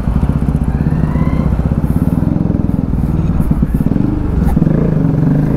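Bajaj Pulsar NS200's single-cylinder engine running through an Akrapovic slip-on exhaust on a freshly fitted stainless-steel bend pipe, a deep, solid exhaust note at low riding speed. It gets louder near the end as the bike pulls away.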